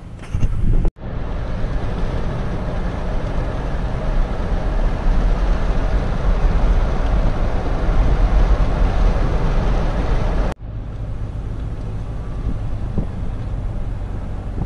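Steady low rumble of a car driving with wind on the microphone, with no rain falling yet. The sound cuts off abruptly about a second in and again about two-thirds of the way through.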